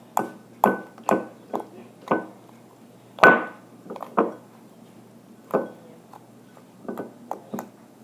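Homemade glue slime, activated with laundry detergent, being squished and poked by hand close to the microphone. It gives about a dozen separate sticky clicks and pops at irregular intervals, the loudest about three seconds in.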